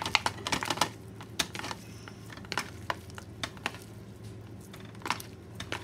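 Plastic film being torn off a tray of ground turkey and the plastic tray handled over a plastic mixing bowl: a quick run of crinkly clicks in the first second, then scattered light clicks and taps, with a few more near the end. A faint steady low hum runs underneath.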